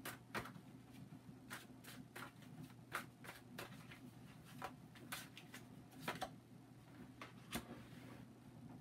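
Tarot cards being shuffled by hand, giving faint, irregular soft taps and slaps of card on card, with a card set down on the table near the end.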